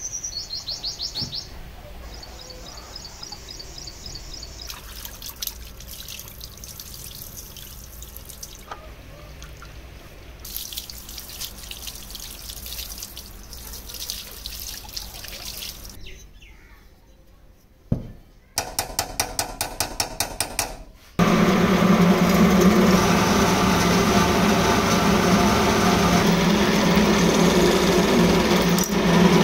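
Water running and splashing over the rusty iron body as it is rinsed. After a thump and a short run of rapid clicks, a bench drill press starts and runs steadily, drilling into the metal base of the charcoal iron; this is the loudest part.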